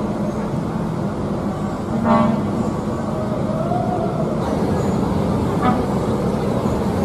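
Intercity coach buses running slowly with a steady engine rumble. A short horn toot sounds about two seconds in, and a fainter one near six seconds.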